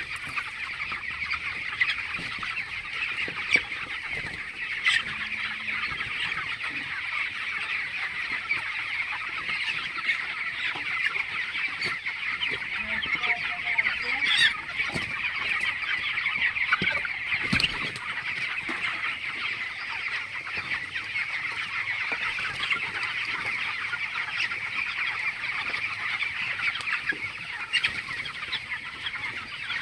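A large flock of 22-day-old broiler chickens calling together: a steady, dense chatter of many overlapping high-pitched calls. A few short knocks stand out, the loudest about halfway through.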